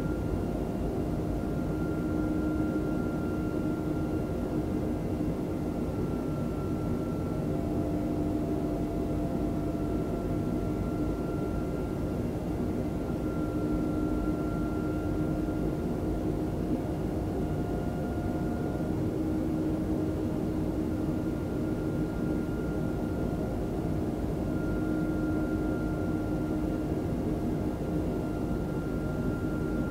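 Airbus A320 jet engines running steadily, a constant drone with a few steady hums that drift slightly in pitch.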